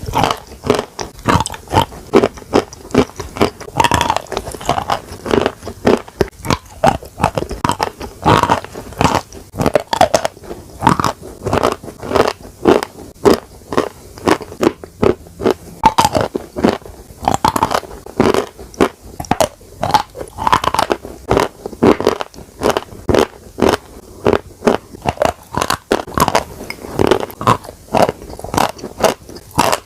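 Pieces of chalk with paste being bitten and chewed close to the microphone: sharp, crisp crunches several times a second, with quieter crackly chewing between bites.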